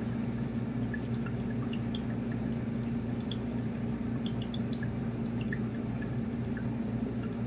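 Running aquarium: water trickling from the tank's filter and bubbler, with scattered small drips and bubble pops over a steady low hum.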